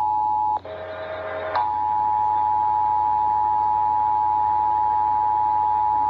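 Emergency Alert System attention signal, the steady two-tone alarm (853 and 960 Hz together) that opens a Connecticut statewide EAS test, received on FM 101.3 and played through a Midland emergency weather radio's small speaker. About half a second in, the tone breaks off for about a second, with a quieter, buzzier sound in the gap, then resumes steadily.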